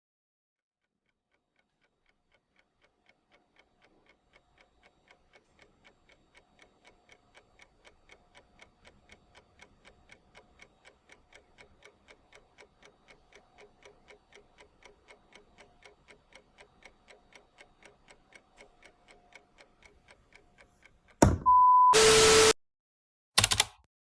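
A clock ticking steadily, fading in from silence. Near the end it is cut off by a sudden loud noise carrying a steady tone, then a short loud burst.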